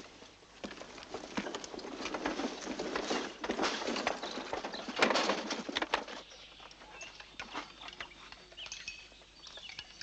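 Outdoor forest ambience: a rustling, crackling noise for the first few seconds, then quieter, with small birds chirping.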